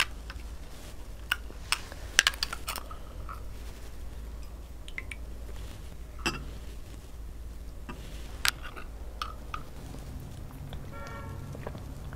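Metal spoon clinking against a glass jar and a drinking glass as honey is scooped out and stirred in: scattered sharp clinks, several in quick succession about two seconds in. Drinking sounds near the end.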